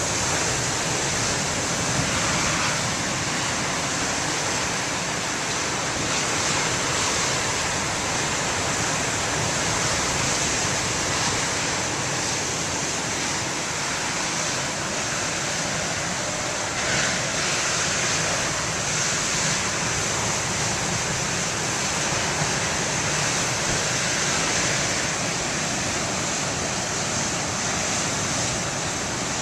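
Big ocean waves breaking on the shore: a continuous rush of surf, swelling and easing slightly in loudness.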